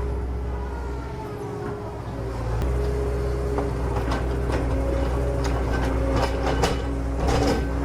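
Remote-control construction models (excavator and dump trucks) running: a steady motor drone with a low hum that dips briefly and comes back about two and a half seconds in, joined in the second half by a run of sharp clicks and knocks.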